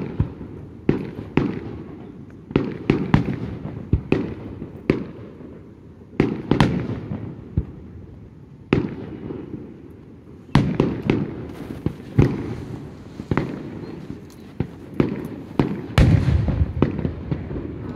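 Aerial fireworks shells bursting one after another, each sharp bang trailing off in an echo. The bangs come irregularly, a second or two apart at first and in a quicker volley from about ten seconds in.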